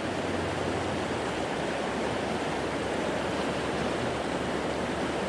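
Rushing river rapids: a steady, even roar of fast, high water running over rocks, the river swollen by snowmelt and rain.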